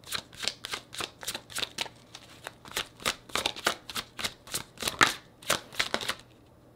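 A deck of tarot cards shuffled by hand, a quick irregular run of short card slaps that stops about six seconds in.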